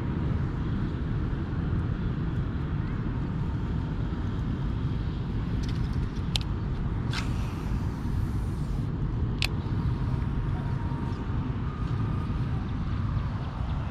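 A baitcasting reel clicking sharply three times as it is handled, about six, seven and nine seconds in, over a steady low outdoor rumble.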